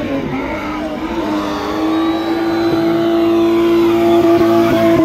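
BMW M20 straight-six engine held at high revs: one steady high engine note that climbs a little over the first two seconds, then holds and grows louder toward the end.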